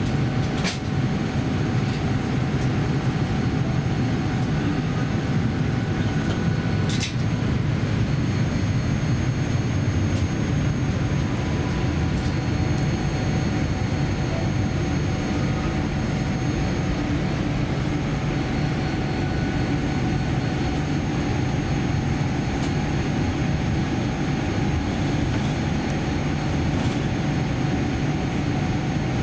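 Cabin noise of a Boeing 787-10 airliner taxiing: a steady low rumble with a faint steady whine over it. Two brief clicks, one just after the start and one about seven seconds in.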